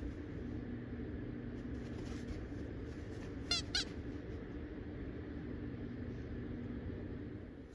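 Poodle pawing and scratching at a padded dog cushion as it settles in, faint against a steady room hum. About halfway through come two short, high squeaks, close together, which are the loudest sounds.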